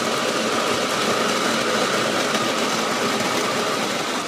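Built-in coffee grinder of a Krups KM7000 grind-and-brew coffee maker running steadily, grinding the beans before brewing.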